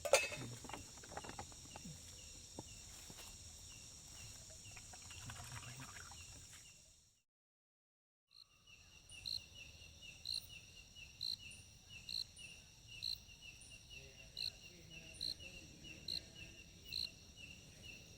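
Night insects, crickets among them, trilling steadily at a high pitch, with a few light knocks in the first part. About halfway through the sound fades out to silence for a second or so. When it returns, crickets chirp in a regular rhythm: fast pulses with a higher chirp about once a second over the steady trill.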